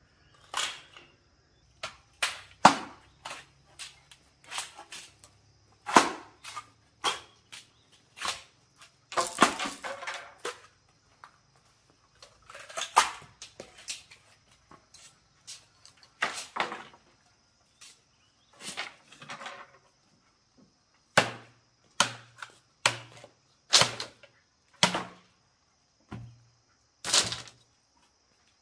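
Irregular series of sharp chopping knocks, roughly one a second with some quicker runs, like a blade striking wood or bamboo.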